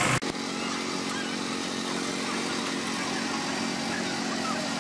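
Outdoor market background noise: a steady low machine hum under faint, indistinct crowd chatter, starting with an abrupt cut just after the beginning.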